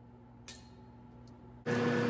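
A single sharp metal clink about half a second in, then a motor-driven power tool starts abruptly near the end and runs steadily and loudly.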